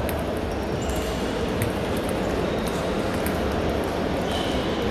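Steady murmur of a busy sports hall, with scattered light clicks of table tennis balls from matches on neighbouring tables.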